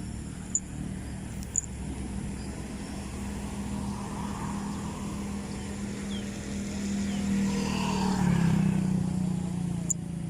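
A motor vehicle's engine running steadily, growing louder about eight seconds in as it comes closer.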